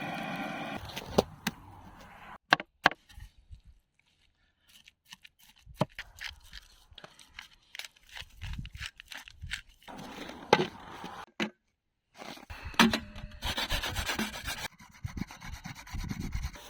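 Rasping, scraping strokes in several short stretches, with a few sharp knocks near the start and two brief breaks.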